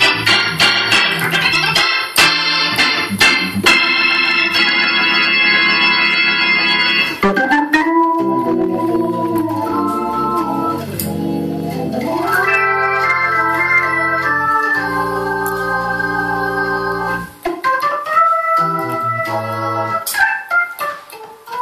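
Hammond console organ played solo: dense, loud chords with sharp stabs for the first several seconds, then a softer passage of held notes over a moving bass line.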